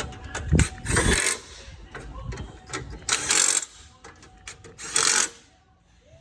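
Hand tools at work on a car: quick metal clicks and clatter, with three short, loud rasping bursts about one, three and five seconds in, then quiet near the end.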